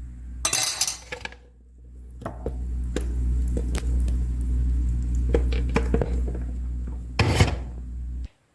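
Kitchen utensils clinking and scraping against dishware: a string of light clinks over a low steady rumble, with two louder clattering bursts, one near the start and one near the end, before the sound cuts off suddenly.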